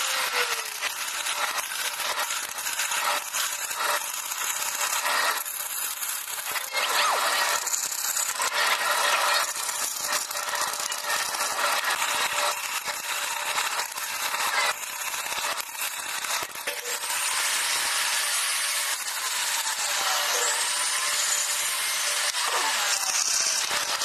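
A power tool working wood: a continuous rasping noise, with the motor's pitch dipping and recovering a few times near the end.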